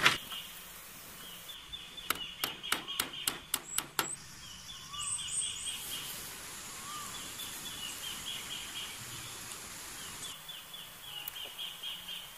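Outdoor ambience with birds giving repeated high chirping calls in short runs. About two seconds in, a quick series of about eight sharp knocks, roughly four a second.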